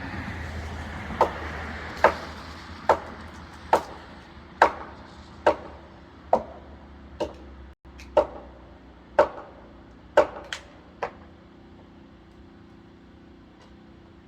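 Chopping blows into wood: about a dozen sharp strikes, roughly one a second, that stop about eleven seconds in.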